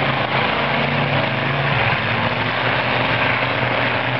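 Engines of several demolition derby cars running hard at once as they race around the track, their pitch shifting a little as they speed up and slow down.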